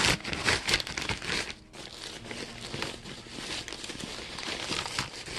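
Packaging crinkling and rustling as a stuck tripod is worked free of it, loudest in the first second.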